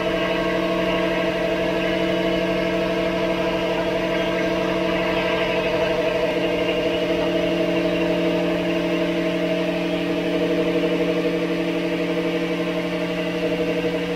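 Rear axle of a 2007 Toyota 4Runner turning under power with the wheels spinning free on a lift: a steady hum of several tones with a slight warble. The owner traces the noise with a stethoscope to the rear differential's carrier bearings rather than the wheel bearings.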